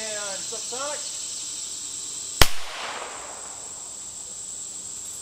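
A single .22 LR shot from a Heritage Rough Rider single-action revolver with a 2-inch barrel: one sharp crack about two and a half seconds in, dying away quickly. The round is a CCI Subsonic Segmented. A steady high insect drone runs underneath.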